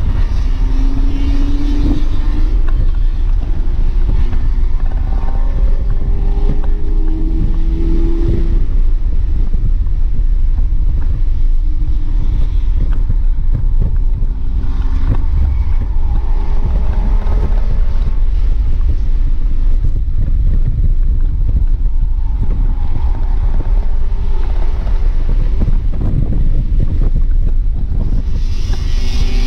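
2007 BMW 328i's inline-six engine heard from inside the cabin at high revs on track, climbing in pitch under acceleration in the first several seconds and again near the end, over a heavy low rumble of road and wind noise.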